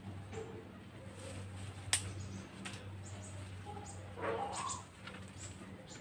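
A short bird call about four seconds in, after a single sharp click near two seconds, over a steady low hum.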